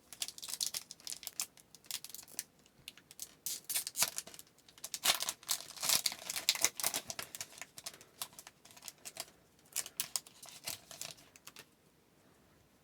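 Foil trading-card pack wrapper being torn open and crinkled, with cards rustling as they are handled: a long run of quick, sharp crackles and rustles that stops about a second before the end.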